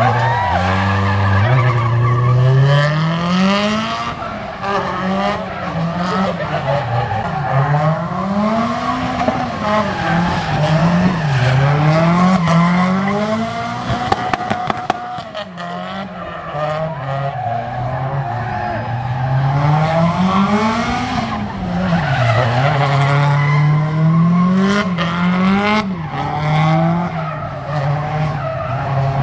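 Nissan Silvia S13 drifting: its engine revs climb and drop over and over as the throttle is worked through the slides, with skidding noise from the sliding rear tyres. A few sharp clicks come about halfway through.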